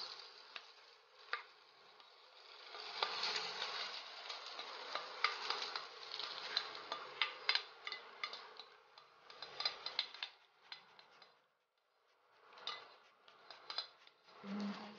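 Cooked rice sizzling as it lands in hot oil in a nonstick frying pan, while a spatula scrapes it out of a bowl and stirs it, with scattered sharp clicks and taps of utensil on bowl and pan. The sizzle dies away briefly near the end and then returns in shorter bursts as the stirring goes on.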